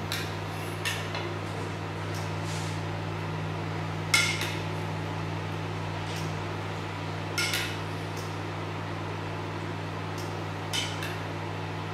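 Metal spoon clinking lightly against a stainless-steel saucepan and a china plate while sauce is spooned out, four spaced clinks with the loudest about four seconds in, over a steady low hum.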